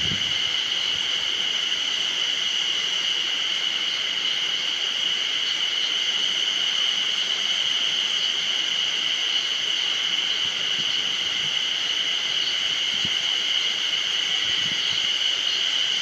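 A dense chorus of spring cicadas singing: a steady high-pitched drone that holds without a break.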